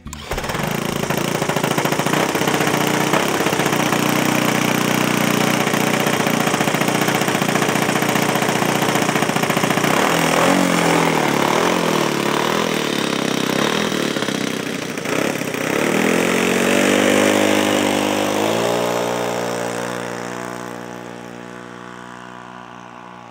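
Single-engine scale radio-control model aircraft engine, spun up with a hand-held electric starter and then running steadily. About ten seconds in the revs go up and down, then about seventeen seconds in it is run up to full throttle for the takeoff and holds a higher pitch, growing fainter near the end as the plane climbs away.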